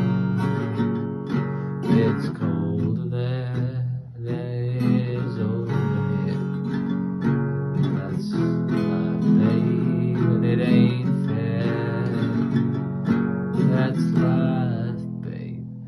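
Acoustic guitar strummed in an instrumental passage of a song, with no singing.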